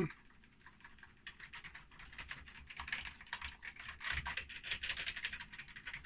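Keys of a repaired ZX Spectrum Plus keyboard being typed on quickly to test it: a fast, uneven run of plastic key clicks starting about a second in.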